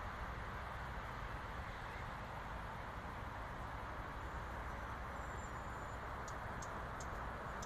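Steady rain falling, an even hiss with a low rumble underneath. A few short, high chirps come near the end.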